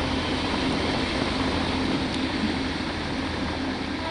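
Steady wash of heavy rain and floodwater, with a car driving through the flooded street.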